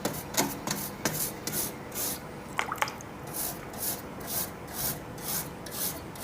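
A brush scrubbing up and down over a window air conditioner's finned coil, in steady, even strokes about two to three times a second, with a few light knocks in the first half.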